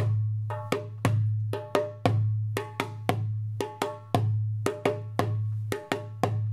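African hand drumming on a tam-tam, played in a fast repeating rhythm. A deep drum boom sounds about once a second under quicker, sharp, ringing higher strikes.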